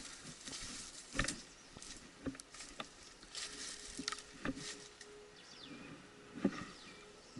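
Irregular footsteps and rustling of a player moving through undergrowth, with several sharper knocks. A bird gives a short falling whistle near the end.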